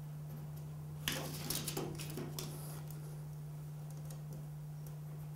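Faint scratches and light taps of a pencil marking drywall against a held tape measure, clustered from about a second in for a second and a half, over a steady low hum.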